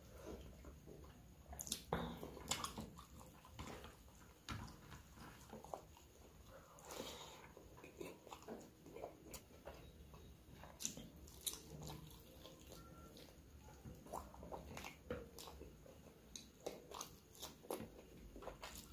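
Close-miked eating sounds of a person eating chicken curry and rice by hand: chewing and biting, with many scattered short wet clicks and smacks.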